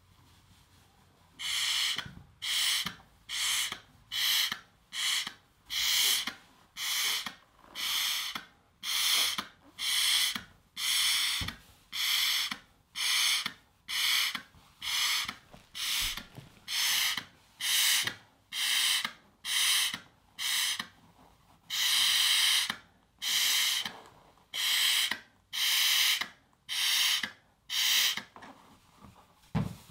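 Breaths blown into a 24-inch latex balloon to inflate it by mouth: a long run of short, hissy breaths, about one a second, starting a second or two in and stopping near the end.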